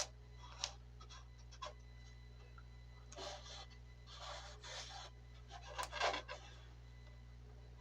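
Faint handling of MDF dollhouse parts during gluing and clamping: a few light clicks, then three short rubbing scrapes of fiberboard pieces against each other, over a low steady hum.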